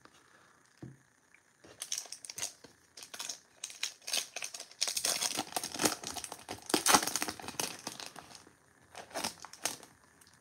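Plastic wrapper of a Topps 2022 Series 2 baseball-card pack being torn open and crinkled by hand: a dense run of irregular crackling that starts about two seconds in, is loudest in the middle and tapers off near the end.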